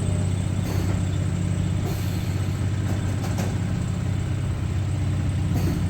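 CNC milling machine running: a steady low hum, with a few faint clicks.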